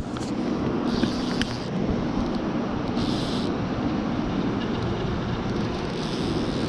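Steady rush of river water, with a few short higher hisses about half a second long.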